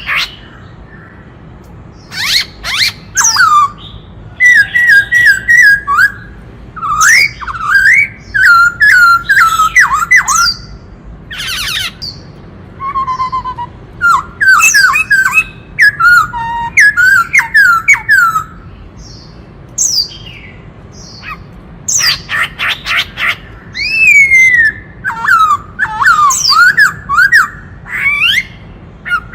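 Black-throated laughingthrush singing loudly: phrases of rapid, sliding whistled notes mixed with harsh rasping calls, broken by short pauses.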